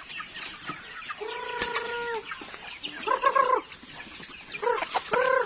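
Chickens clucking and calling: one long, drawn-out call about a second in, then shorter clucks around three seconds and again near the end, over light scratching and clicking sounds.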